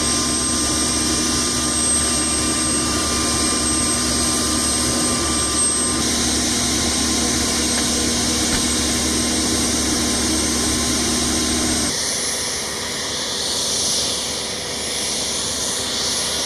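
Sikorsky HH-60 Pave Hawk helicopter running on the ground: the steady whine of its twin turboshaft engines over rotor and engine noise, with a thin high whine on top. The sound changes abruptly about six and twelve seconds in, the low rumble dropping away after the second change.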